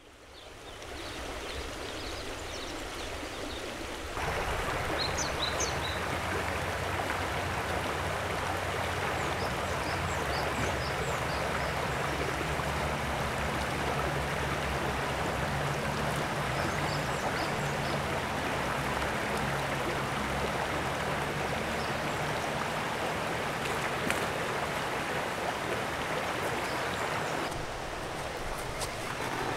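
A shallow, stony creek flowing steadily over rocks. The sound fades in at the start and grows louder about four seconds in, with a few faint high chirps above it.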